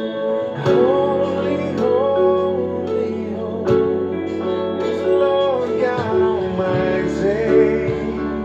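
Worship song music with guitar under a wavering, gliding melody line.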